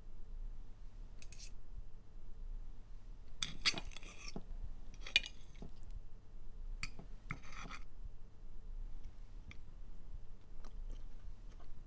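Knife and fork scraping and clinking on a ceramic plate while cutting fried eggs and bacon: several short strokes, the loudest in the middle, then only a few faint clicks near the end.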